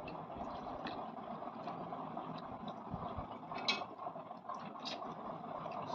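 A person slurping instant noodles off a fork and chewing, with short sharp slurps a little past the middle, over steady low background noise.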